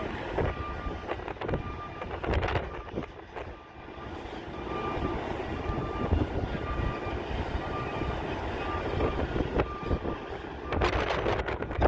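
Heavy vehicle's reversing alarm giving evenly spaced beeps over a low diesel engine rumble, with a louder rush of noise near the end.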